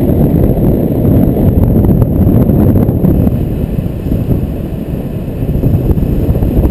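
Airflow of paraglider flight buffeting the pilot's camera microphone: a loud, gusty low rumble that eases a little in the second half.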